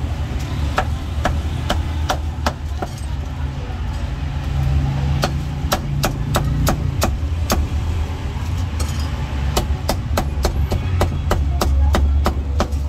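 Meat cleaver chopping crispy roast pork belly on a thick round wooden chopping block: sharp knocks several times a second, in quick runs with short pauses. A steady low rumble runs underneath.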